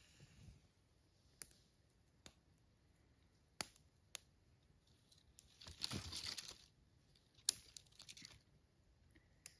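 Dry twigs and kindling of a small, newly lit campfire giving scattered sharp snaps and crackles, with a longer rustling, crunching burst about six seconds in followed by a quick run of small crackles.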